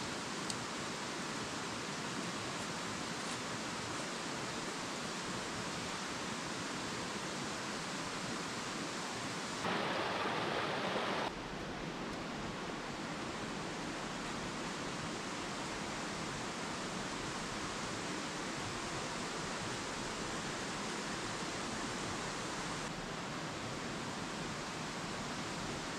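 Shallow rocky stream flowing steadily over stones, an even rushing sound of running water. It briefly grows louder for about a second and a half around ten seconds in.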